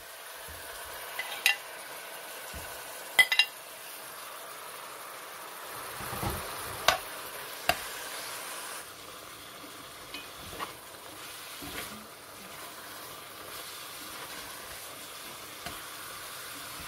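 Raw chicken fillets sizzling in hot oil with fried chopped onion while a spoon stirs them. A steady frying hiss runs under several sharp clinks of the spoon against the pan.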